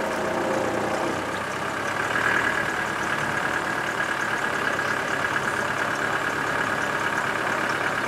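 Vehicle engine running steadily.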